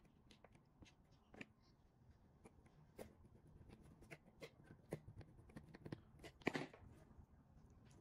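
Faint scattered clicks and rustles of hands handling jumper wires and small plastic wire connectors on a relay circuit board, with a short cluster of louder clicks near the end.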